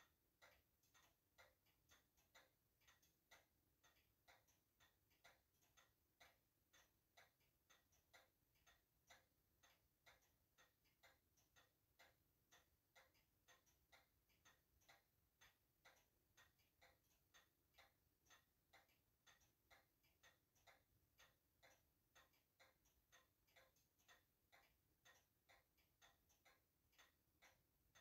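Very faint, steady ticking of a mechanical timepiece, a few even ticks a second.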